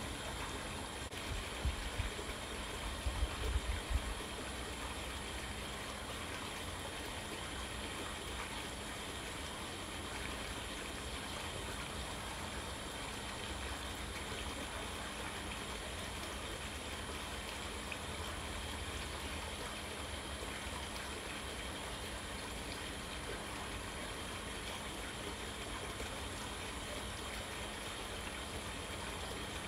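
A steady rushing hiss of background noise, with a few low bumps in the first few seconds.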